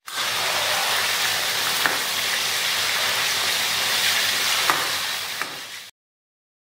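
Chicken frying in oil in a steel karahi, a steady sizzle, while a metal ladle stirs it and clinks against the pan three times; the sound cuts off suddenly near the end.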